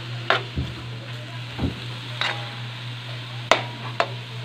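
Pork cubes sizzling in oil in a wok while a metal spatula stirs them, knocking and clinking against the pan about six times, the sharpest knock about three and a half seconds in.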